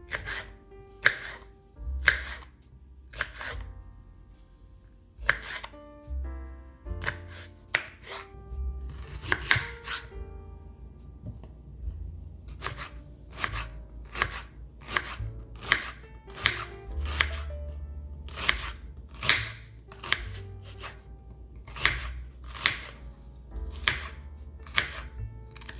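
Knife chopping food, single sharp strikes at an unhurried pace of about one a second, now and then two in quick succession, over soft background music.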